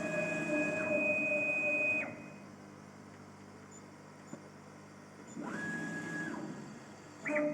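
Stepper motors of a KAMACH 1610 CO2 laser cutter driving the laser head, a steady electronic whine of several tones that ramps up and down as each move starts and stops. One move ends about two seconds in, another runs for about a second in the middle, and a brief one comes near the end, with a faint steady hum between.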